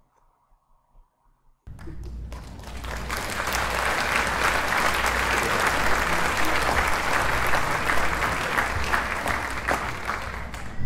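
Applause from many hands clapping. After a moment of near silence it starts suddenly, swells over about a second, then holds steady.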